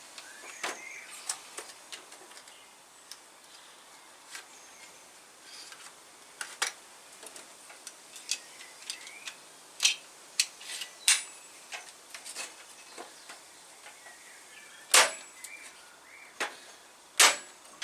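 Parkside PHET 15B1 electric nailer/stapler: a run of small scattered clicks and rattles as the tool and staples are handled, then two sharp firing shots about two seconds apart near the end, driving staples into softwood.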